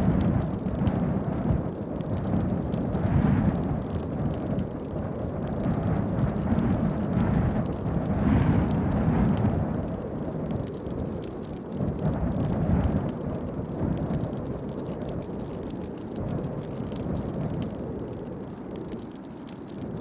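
A deep, pitchless rumble that swells and eases every few seconds, under a fiery scrolling-text title sequence.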